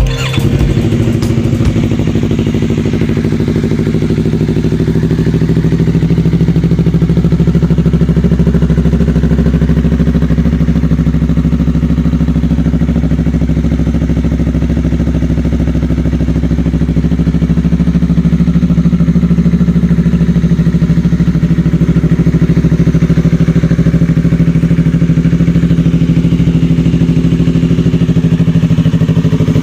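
Yamaha MT-03's parallel-twin engine idling steadily through a Yoshimura AT2 slip-on exhaust, a loud, even exhaust note.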